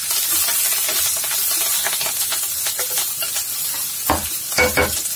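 Tempering of mustard seeds, dals, chillies and curry leaves sizzling in hot oil in a nonstick kadai, with a spatula scraping and stirring through it. A few brief louder sounds come near the end.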